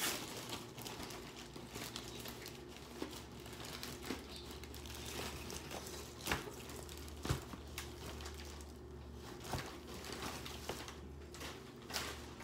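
Close-up eating sounds: chewing and handling of roast chicken and food on plates, with light crinkling and a few sharp clicks and taps, over a steady low hum.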